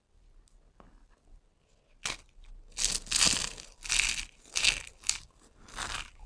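Dry, cut soap strips crushed in the hand: after a quiet start, a run of crisp crunches begins about two seconds in, some six or seven of them, the loudest near the middle.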